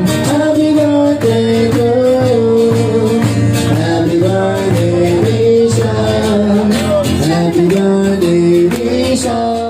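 Live music with a steady beat and a melody line over it, with a large hand-held frame drum beaten along.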